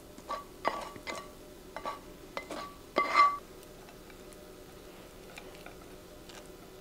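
Spatula scraping and tapping scrambled eggs out of a nonstick frying pan onto a ceramic plate: a quick series of knocks and clinks, some with a brief ring, the loudest about three seconds in.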